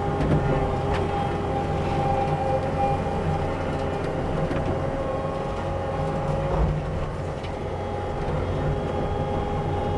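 Heavy-equipment diesel engine running steadily under load, with a steady hydraulic whine over it and a few short knocks, one at the start and one about two-thirds of the way through.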